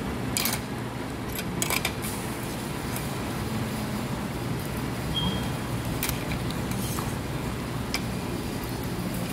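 Restaurant dining-room ambience: a steady low hum of room noise with several short, light clicks and knocks scattered through it, and a brief high beep about five seconds in.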